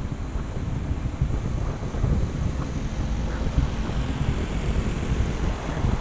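Low, gusting rumble of wind buffeting the camera microphone, mixed with vehicle or road noise.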